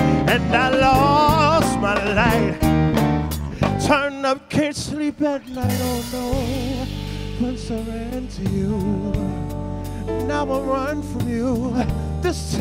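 Live soul band playing, drums and electric guitar under a male singer's wavering vocal runs. About four seconds in the drums play a fill that ends on a cymbal crash, and the band carries on.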